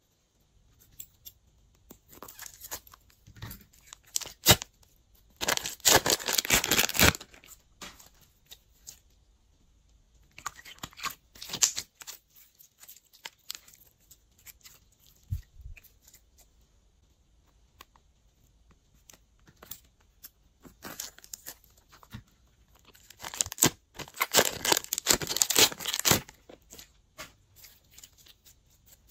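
Glossy slime being squished, stretched and pulled apart by hand, giving wet crackling and popping. Two longer runs of dense crackling, about five seconds in and again past twenty seconds, with scattered smaller pops between.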